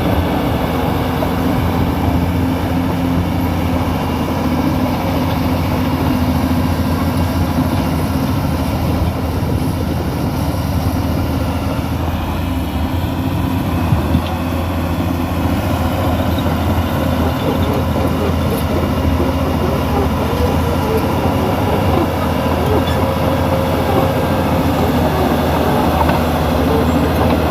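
New Holland crawler dozer running under load, its diesel engine holding a steady note while the steel tracks clatter and rattle. The level rises a little near the end.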